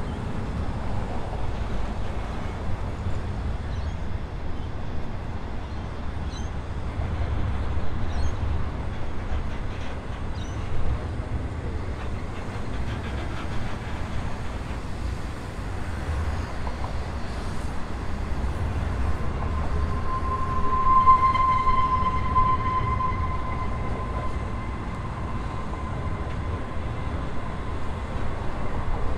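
Long freight train's wagons rolling past with a steady low rumble of wheels on rail. About two-thirds of the way through, a steady wheel squeal rises for several seconds, then fades.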